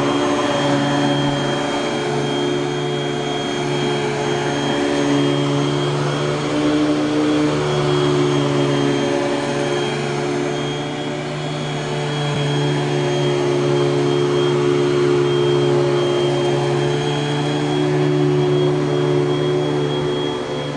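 1984 Panasonic Jet-Flo MC-5116 bagged upright vacuum cleaner running steadily, its motor giving a steady high whine over a lower hum, easing slightly in loudness about halfway through.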